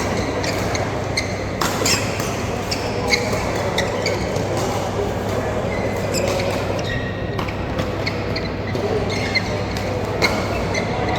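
Badminton doubles rally in an indoor hall: sharp racket-on-shuttlecock hits at irregular intervals, over a steady hum and background voices.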